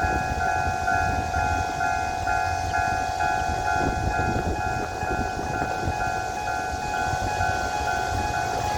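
Electronic level-crossing warning alarm sounding: a steady electronic tone with a higher note pulsing about twice a second, the crossing's special, non-standard alarm sound. A low rumble runs underneath.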